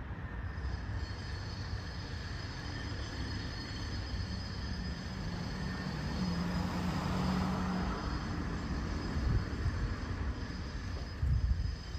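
Steady low engine rumble of a passing vehicle, swelling into a low hum a few seconds in and easing off again.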